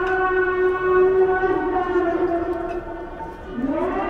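A siren sounding one long steady wail. Near the end it briefly drops and winds back up to its pitch.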